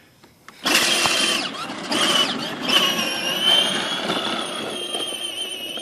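Peg Perego ride-on toy tractor's electric drive motor and gearbox whining as it drives on a 12-volt battery in place of its stock 6-volt one, its wheels rolling on asphalt. The whine starts suddenly about two-thirds of a second in and then holds steady.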